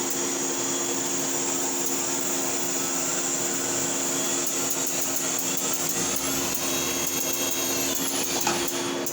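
Swiss-style Citizen CNC lathe running with a steady mechanical hum and high hiss. About six seconds in, a whine rises, holds for about two seconds, then falls away.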